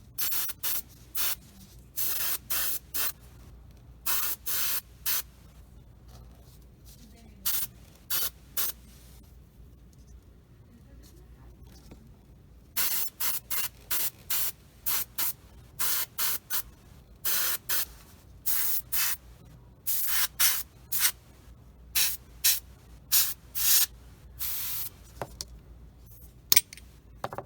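Airbrush spraying paint in many short hissing bursts, each under a second, with a pause of several seconds about a third of the way in.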